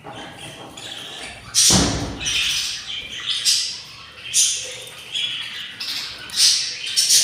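Budgerigar chicks giving repeated harsh, raspy begging squawks, the sign of hungry nestlings, with a single loud thump about a second and a half in.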